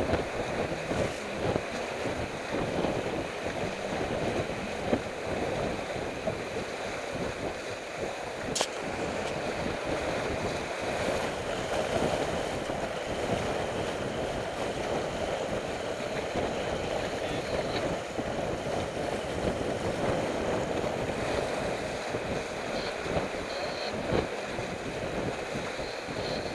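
Wind buffeting the microphone over the steady rush and splash of water along the hull of a heeled sailboat under sail, close reaching in about 15 knots of wind.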